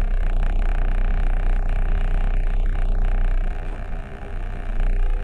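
Steady low rumble of a vehicle engine idling, heard from inside the cab. It eases off briefly about three and a half seconds in, then comes back.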